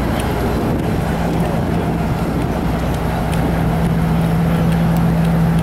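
Engine running steadily with a constant low hum.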